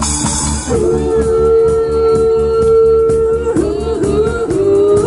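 Live band music with a steady beat, and a voice holding one long note for about three seconds, then sliding between notes.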